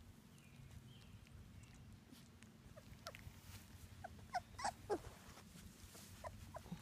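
Three-week-old black Labrador puppies whimpering: short, high squeaks and whines, several in a quick cluster about two thirds of the way in, one sliding down in pitch, and a few more near the end.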